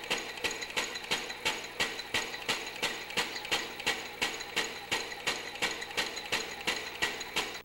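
Inertial propulsion engine prototype, a modified Dean drive, running: a steady mechanical whine with a sharp, regular knock a little over twice a second. It starts and stops abruptly.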